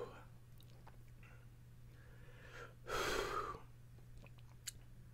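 A man breathing hard through his open mouth, with one strong exhale about three seconds in, against the burn of Carolina Reaper pepper in his mouth. A low steady hum runs underneath.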